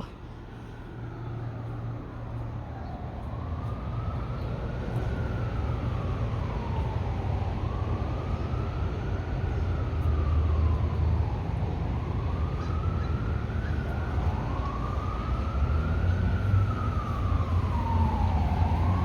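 An emergency-vehicle siren wailing, its pitch slowly rising and falling about every four seconds over a low rumble of traffic. It grows louder over the first few seconds as the vehicle comes closer.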